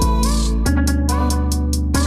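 Background music: an instrumental track with guitar-like plucked notes over a steady beat.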